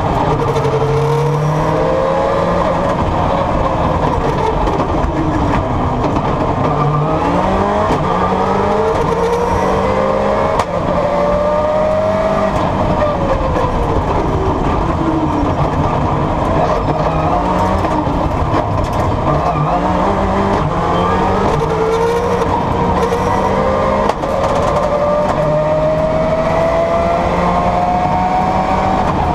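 Subaru rally car's engine heard from inside the cabin, driven hard: it revs up repeatedly through the gears and falls back between shifts and braking, with some tyre squeal.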